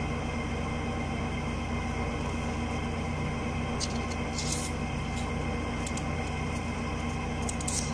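Steady room hum, with a few faint light taps and rustles of paper being handled about four seconds in and again near the end.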